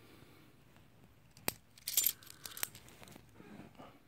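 Half-dollar coins clinking against each other as they are handled and stacked in the hand: a sharp click about a second and a half in, a quick cluster of clinks just after, and another a moment later.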